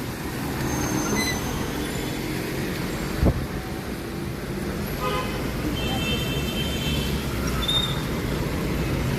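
Street traffic noise: a steady rumble of passing road vehicles, with a short sharp knock about three seconds in and some faint high chirping tones in the second half.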